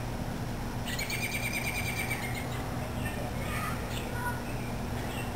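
A bird singing: a fast trill of evenly spaced notes lasting about a second and a half, starting about a second in, then a few short chirps near the end, over a steady low background hum.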